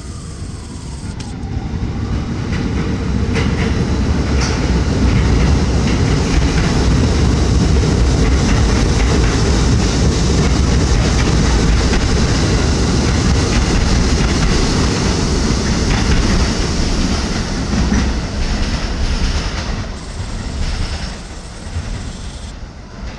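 R68/R68A subway train passing on an elevated line, its steel wheels rumbling and clacking over the rail joints. The noise builds over the first few seconds, stays loud for about twelve seconds, then fades as the train pulls away.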